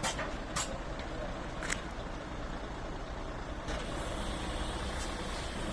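A truck's engine running with a steady low rumble. A few short hissy sounds come in the first two seconds, and more hiss comes in over the second half.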